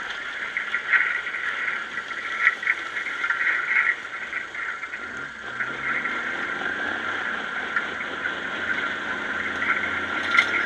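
Tracked snow groomer moving along the trail: a constant high squeal that flares and fades, over the engine, whose note climbs about five seconds in.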